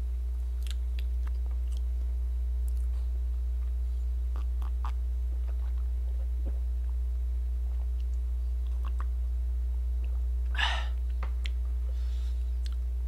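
Faint chewing and mouth clicks from a person eating, over a steady low electrical hum. One short breathy noise comes about ten and a half seconds in.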